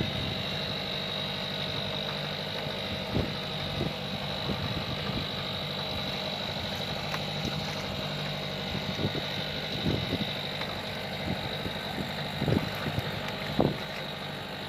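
Boat engine running steadily at idle with a constant hum, with a few short knocks scattered through.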